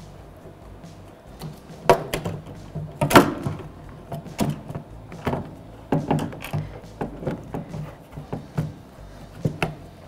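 Exterior door handle assembly being worked into its opening in a car door: irregular clicks, taps and knocks of the handle and its linkage against the sheet-metal door, the loudest about three seconds in.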